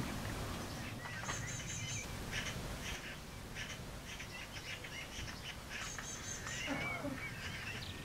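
Eurasian magpies chattering near their nest, giving several short runs of rapidly repeated calls.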